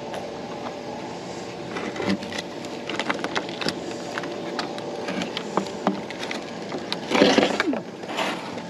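Scattered small clicks and knocks over a steady background hum, with a brief louder rush of noise about seven seconds in.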